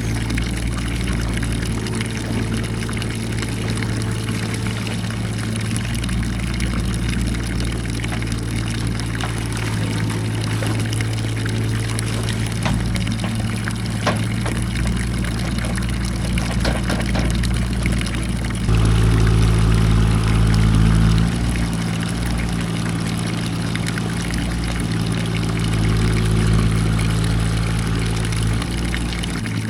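Small 25-horsepower engine of a mini excavator running steadily, powering the hydraulics while digging. About two-thirds of the way in, the engine note rises and gets louder for a few seconds under load. A few scattered knocks and scrapes come from the digging.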